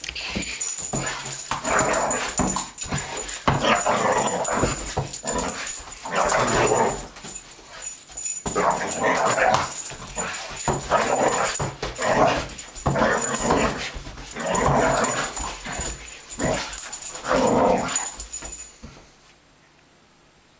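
Young vizsla dog barking and yipping in excited play, loud barks coming about once a second. The barking stops shortly before the end.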